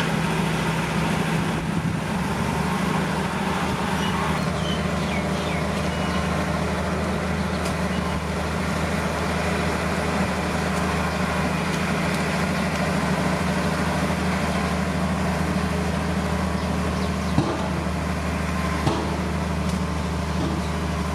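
Heavy diesel engine of earthmoving machinery running steadily at a low, even drone, with two short sharp knocks about a second and a half apart near the end.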